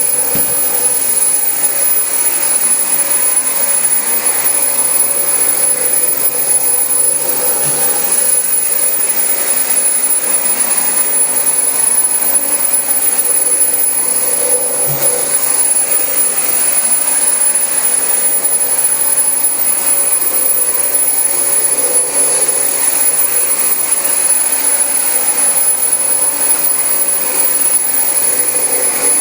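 Dyson DC25 upright vacuum cleaner running steadily while vacuuming carpet: an even rushing of air with a steady high whine.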